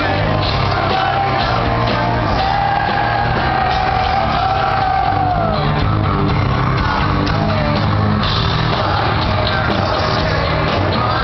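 Hard-rock band playing live and loud, with electric guitars, bass and drums under a sung vocal line.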